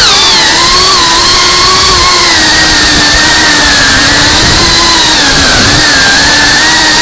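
GEPRC CineLog 35 FPV cinewhoop drone in flight: its brushless motors and ducted propellers whine loudly, heard close up from the camera on board, over a steady hiss. The pitch falls within the first half second, then holds fairly steady, shifting slightly with the throttle.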